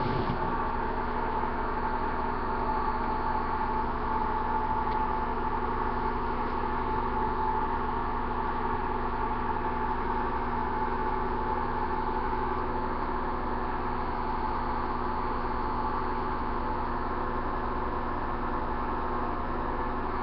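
A steady machine hum with several constant pitches, unchanging throughout.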